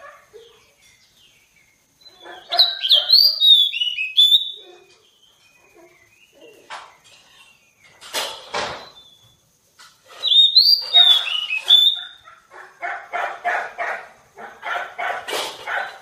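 A caged magpie-robin singing: two loud phrases of sliding whistled notes with a quiet gap between them. A brief sharp knock comes about eight seconds in, and near the end a fast run of harsh repeated notes, about four or five a second.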